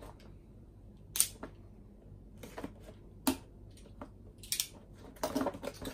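Packaging being handled as a product is unboxed: scattered sharp clicks and crinkles of plastic and cardboard, loudest about a second in and again about three seconds in.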